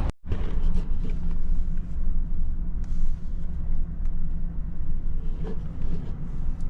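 Car driving, heard from inside the cabin: steady low engine and road rumble. The sound cuts out for a moment right at the start.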